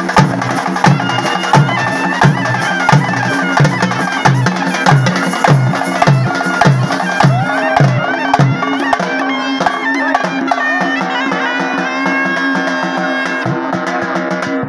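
Traditional procession music: a reedy wind instrument plays a melody over a held drone, with drums beating a steady rhythm. The drumming stops about halfway through while the melody carries on.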